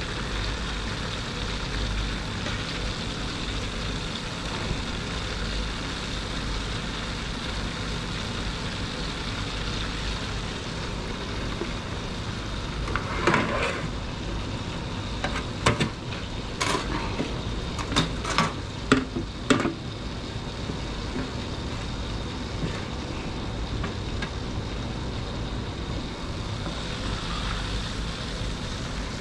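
Deep-frying oil sizzles steadily around a large seafood kakiage tempura fritter, over a low steady rumble. From about 13 to 20 seconds in comes a run of sharp metal clinks and taps as the fritter is lifted out with a mesh skimmer onto a metal wire rack tray.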